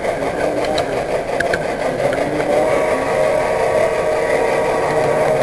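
Model train running along layout track, heard up close from the train: a steady motor and wheel hum with a few light clicks about a second in.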